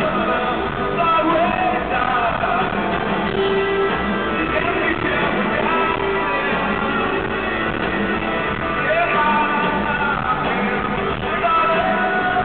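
Rock band playing live, with electric guitars, drums and keyboards under a man's lead vocals, heard from the audience in an arena.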